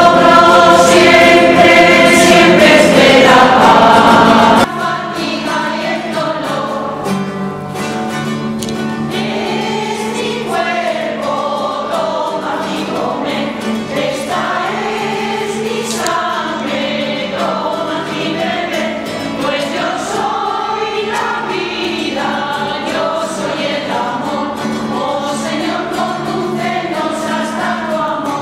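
Church choir of men and women singing with acoustic guitar accompaniment. About five seconds in the level drops abruptly and the singing goes on more softly.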